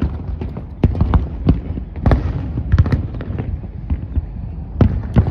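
Aerial fireworks bursting: about ten sharp bangs at uneven intervals, some in quick pairs, with a low rumble of further booms between them.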